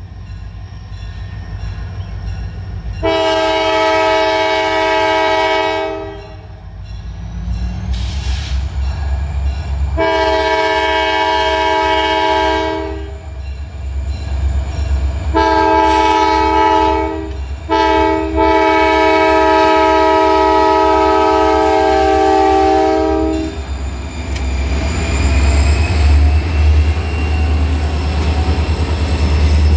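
Great Lakes Central Railroad diesel locomotive sounding its horn, a chord of several tones, in the grade-crossing pattern: long, long, short, long. After the last blast the diesel engine's low rumble grows loud as the locomotive passes close by.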